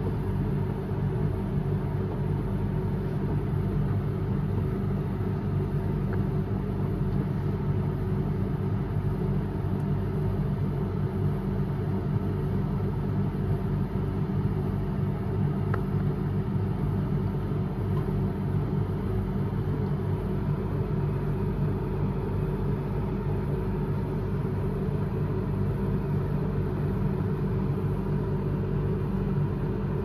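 Front-loading washing machine washing a load of bedding: the drum turning with the wet load tumbling in water over a steady low motor hum and rumble.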